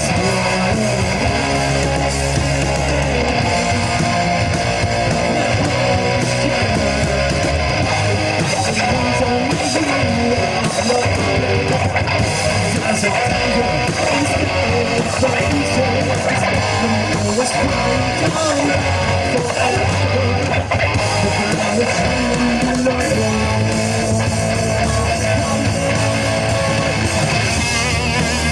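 Live rock band playing an instrumental passage: strummed electric guitars over bass guitar, with no singing.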